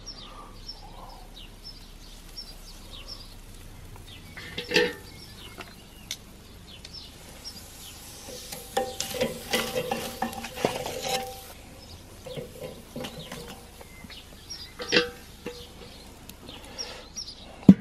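Metal tongs clinking and scraping against the Weber kettle grill's cooking grate: a sharp clank about five seconds in, a busy run of clinks with a short metallic ring between about eight and eleven seconds, and another clank near fifteen seconds.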